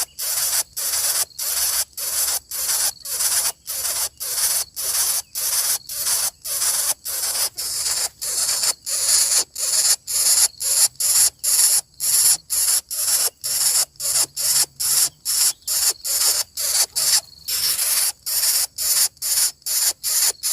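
Coucal chick hissing in a steady rhythm, one harsh raspy hiss after another at about two to three a second.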